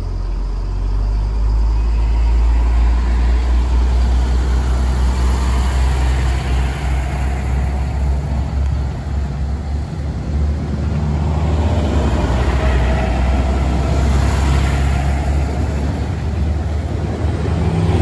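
Eurobahn Bombardier Talent (class 643) diesel multiple unit passing close by: its diesel engines run with a steady low drone over the rumble of wheels on the track.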